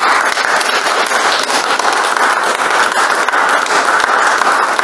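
Audience applauding in a room: many people clapping steadily and evenly.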